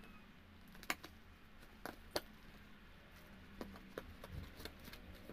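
Packaging being handled: a few sharp clicks and light crinkles from bubble wrap and a taped cardboard box. Near the end come lighter ticks as a blade slits the box's packing tape.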